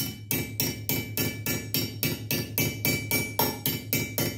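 Small hammer tapping rapidly on a bent Briggs & Stratton push rod resting on aluminum blocks, about four light, ringing metal blows a second, to straighten the rod after it was bent by a valve guide that pushed out of the head.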